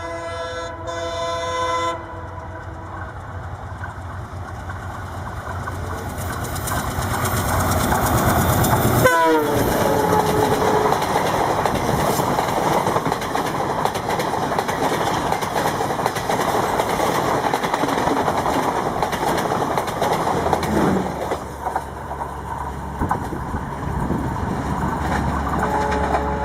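Indian Railways WDM-3A ALCo diesel-electric locomotive honking and speeding past with an express train. A horn chord sounds for the first two seconds. The engine noise then grows until the locomotive passes about nine seconds in, with a pitch sliding down as it goes by, and a short horn blast follows. The coaches then rush past with clattering wheels for about ten seconds before it quietens, and the horn sounds again at the very end.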